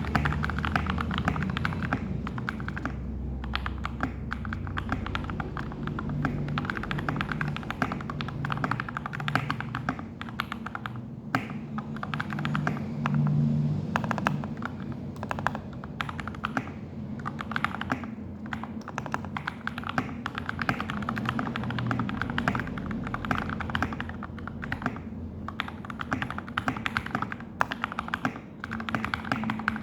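Continuous fast typing on a Feker FK84T mechanical keyboard with lubed Gateron Milky Yellow linear switches, its case filled with case foam, PCB foam and a PE foam mod: a dense, steady stream of keystroke clacks.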